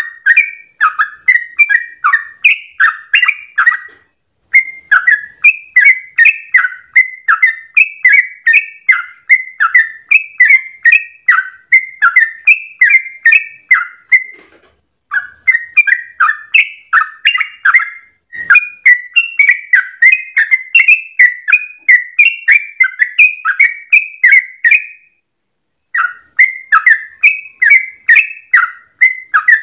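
Yellow-vented bulbul (trucukan) singing its rapid 'ropel' song: a long, fast run of bubbling, sweeping whistled notes, broken by a few short pauses.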